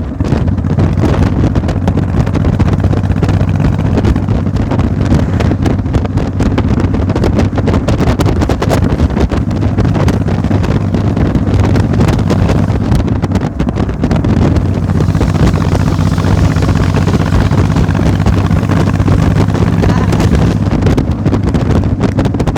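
An engine running steadily, a low hum with no change in speed, with wind buffeting the microphone.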